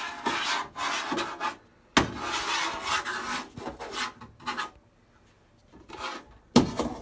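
A round ferrite magnet rubbed and scraped over a TV's sheet-steel backlight chassis to gather the metal filings left from drilling: rasping strokes in two long runs with short pauses, then a sharp knock near the end.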